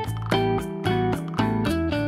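Background music: plucked guitar-like notes on a steady beat, about two a second, over a low bass.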